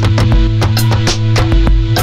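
Background music: a guitar-led rock track with a steady drum beat.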